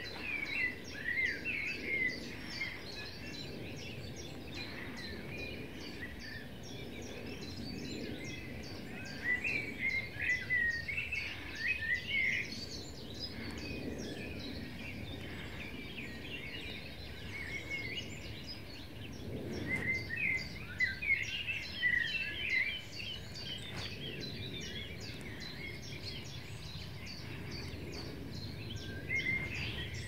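Woodland songbirds singing: bursts of varied chirping phrases near the start, about ten seconds in, about twenty seconds in and near the end, over a steady outdoor hiss and a fast, faint high ticking.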